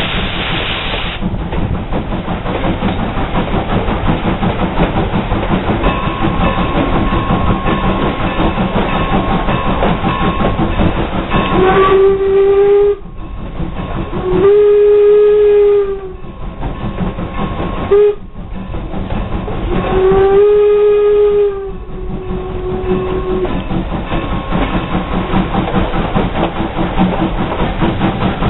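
Steam locomotive whistle blowing the grade-crossing signal: long, long, short, long. It sounds over the steady rumble and clickety-clack of the passenger train rolling along the track.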